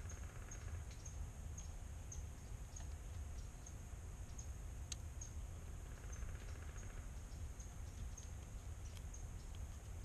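Outdoor ambience: a faint, high, short chirp repeating about every half second over a steady low rumble, with a couple of single clicks.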